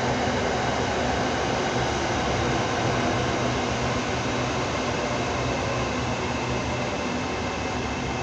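Diesel-hauled long-distance train running along the platform, a steady rumble of the locomotive engine and rolling wheels with a low engine hum, easing slightly near the end.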